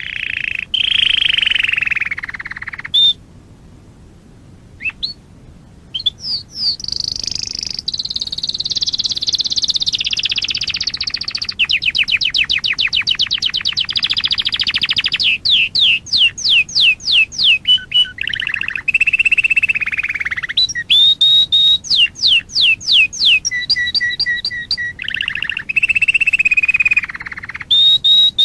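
Domestic canary singing a long song of fast trills and rolls. It runs as rows of rapid repeated notes, with series of sharp falling whistled notes about halfway through and again a little later, and a brief lull about three seconds in.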